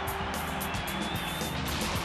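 Background music with a steady drum beat: the soundtrack of a promotional video montage.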